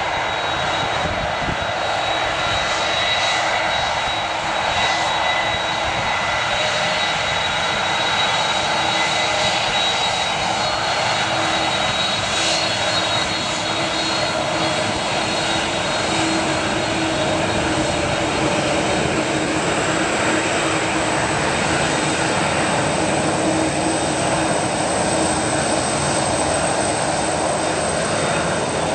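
Jet engines of a Qatar Airways Airbus A330 running steadily at low taxi power: an even rush with high steady whines on top and no rise in thrust.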